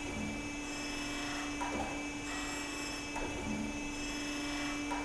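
BMT AH 1000 hydraulic surface grinder running: a steady hum with a thin high whine, and a few faint scratchy sounds.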